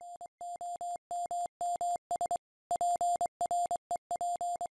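Morse code sent as a single steady beep tone, keyed on and off in a run of short and long elements.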